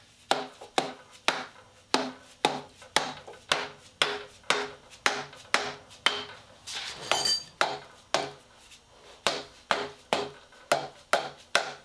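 Repeated blows on the cast-iron cylinder head of a Ford 351M V8, about two a second, each a sharp knock with a short ring, struck to break the head loose from the block. It does not come free.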